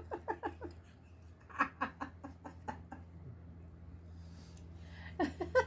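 A lull in the table talk over a steady low hum in the room, with a few short, soft vocal sounds from the diners about a second and a half in and again near the end.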